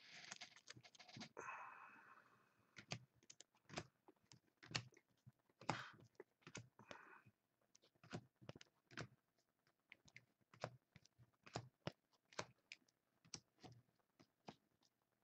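Faint, irregular small clicks and taps, a couple a second, with a short rustling scrape near the start.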